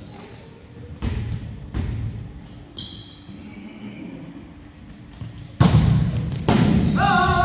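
Volleyball play on a hardwood gym floor: two soft thuds, a few short high sneaker squeaks, then two loud sharp ball hits about a second apart near the end, as a serve and a pass.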